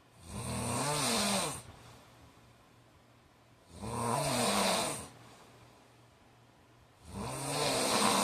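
A man snoring in his sleep: three loud snores about three and a half seconds apart, each lasting about a second and a half, with a rattling tone that rises and then falls in pitch.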